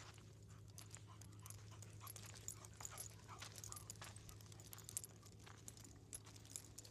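Faint panting of young dogs, with many small irregular scuffs and crunches of steps on a gravel dirt trail, over a low steady hum.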